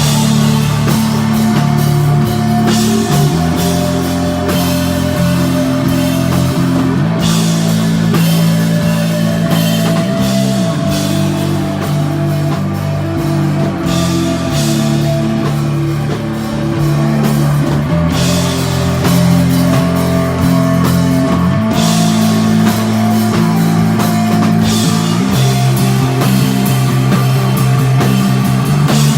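Live instrumental desert rock band playing: electric guitar and drum kit with cymbals ringing over a slow bass line that moves to a new note every second or two.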